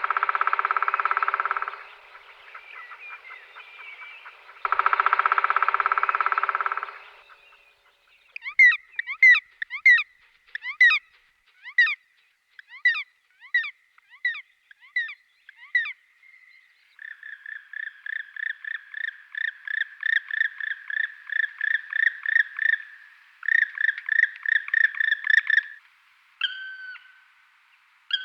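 Black woodpecker drumming: two rapid rolls of about two seconds each, then calling, first about a dozen single sharp, downward-sweeping calls about one a second, then a long run of quicker calls about three a second, with two last calls near the end.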